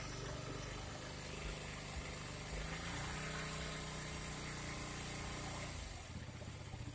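KTM Duke 200's single-cylinder four-stroke engine running, revved during a charging-system test: engine speed rises about two and a half seconds in, holds, and drops back near the end.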